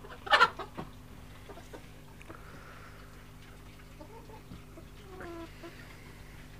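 Chickens calling: one loud, sharp squawk about half a second in, then a few softer clucks later on.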